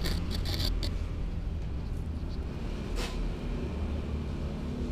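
Steady low background rumble, with a quick cluster of sharp clicks in the first second and one more click about three seconds in.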